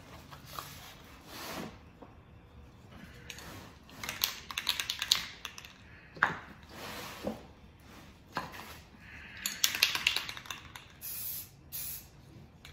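Rust-Oleum Camouflage aerosol spray paint cans giving several short bursts of spray hiss, with two spells of quick clicking rattle that are the loudest part, typical of the mixing ball as a can is shaken.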